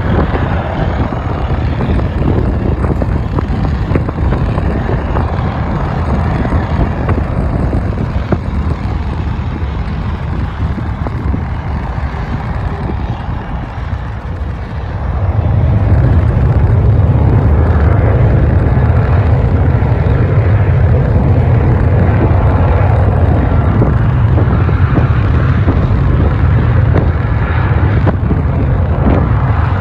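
Military aircraft engine noise with a heavy low rumble. The noise jumps suddenly louder about halfway through and then holds steady.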